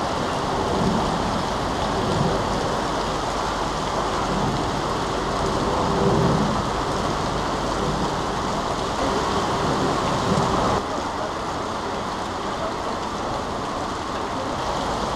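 Steady rushing hiss of rain and floodwater running along a street, dropping slightly in level about two-thirds of the way through.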